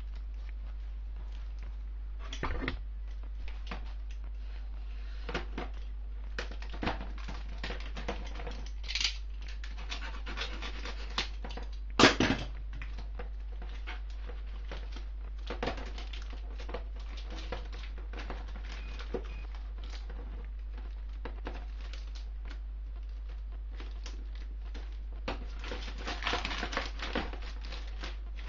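Clear plastic packaging of an engine gasket set rustling and crinkling as it is handled, with scattered light clicks. There is one sharper knock about twelve seconds in and a denser burst of rustling near the end.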